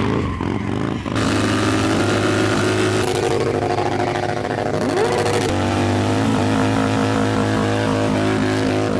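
Motorcycle engines revving during burnouts, with a sharp rise in revs about five seconds in.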